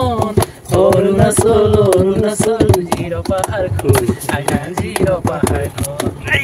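A song: a voice sings long, wavering held notes over a steady beat of clicks.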